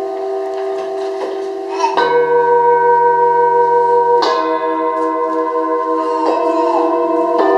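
Tibetan singing bowls resting on people's backs, struck one after another with a mallet: four strikes about two seconds apart, each adding a new ringing note over the still-sounding ones, so several overlapping tones hum and waver together.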